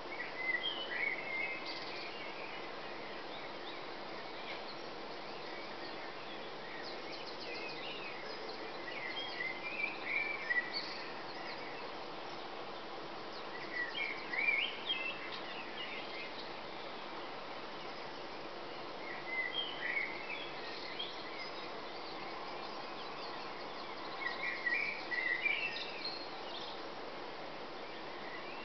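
Dawn chorus birdsong: a songbird singing five short bursts of song several seconds apart, over a steady haze of background noise.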